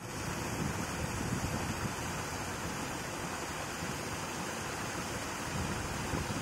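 2 HP four-paddlewheel aerator churning a shrimp pond, its paddles splashing the water into a steady, unbroken rushing wash.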